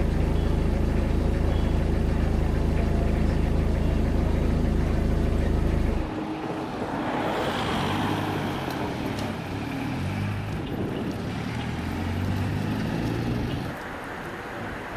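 A steady vehicle engine hum that cuts off abruptly about six seconds in, followed by quieter, shifting traffic noise.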